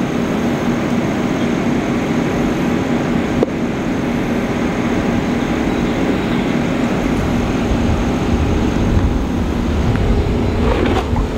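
Steady hum of a running vehicle engine, with a deeper rumble swelling over the last few seconds.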